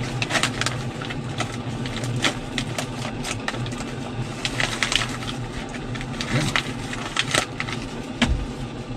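Crinkly packaging being handled and rustled, in a string of irregular sharp crackles, over a low steady hum.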